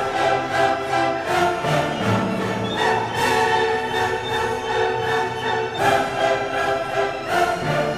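Orchestral background music with bowed strings, chords changing every second or so.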